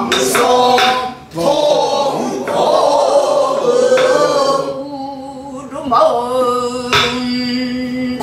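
A woman singing pansori in long, bending, held notes, marked by a few sharp strokes of a stick on a buk barrel drum.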